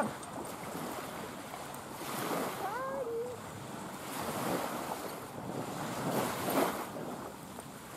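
Small sea waves washing onto a sandy beach in repeated swells, with wind buffeting the microphone. About three seconds in, a brief high call rises and then falls.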